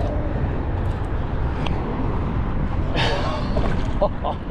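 Wind buffeting the microphone: a steady low rumble, with a short louder noise about three seconds in.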